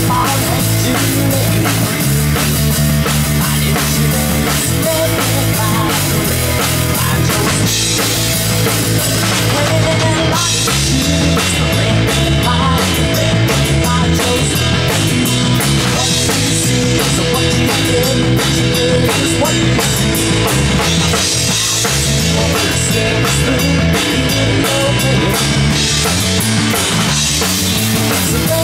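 Live rock band playing without vocals: electric guitars over a full drum kit, loud and steady, with the cymbals growing heavier from about ten seconds in.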